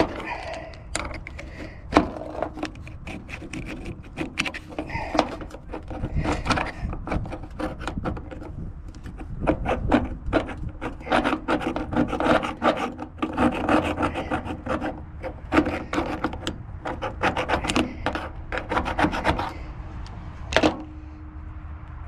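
Old thermostat gasket being scraped off the engine's thermostat housing with a hand tool: quick, irregular scraping strokes that stop near the end, followed by a single knock.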